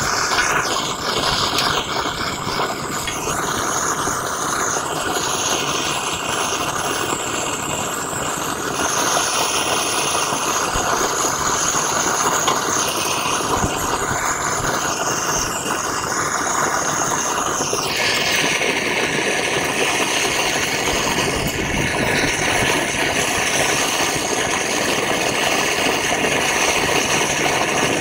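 Gas blowtorch burning with a steady rushing noise as its flame heats aluminium to melting in a steel frying pan. The tone of the flame noise shifts about two-thirds of the way through.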